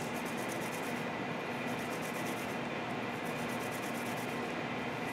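Steady, even hiss of background noise with no distinct strokes.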